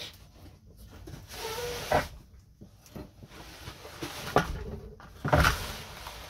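Vintage sewing machine head being tipped back in its wooden case: scraping and handling noise, a knock about two seconds in and a louder clunk about five seconds in.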